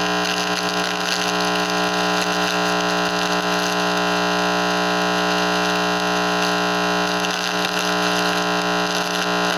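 Homemade receiver-amplifier putting out a loud, steady electronic hiss with a buzzing hum of several fixed tones beneath it, which the owner takes for microwave radiation aimed at his room.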